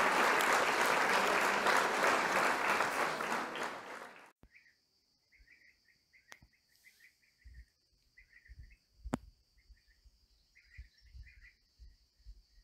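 A crowd applauding, cut off sharply about four seconds in. Then a faint nature ambience follows: short bird chirps over a steady high insect drone, with a couple of sharp clicks and soft low thumps.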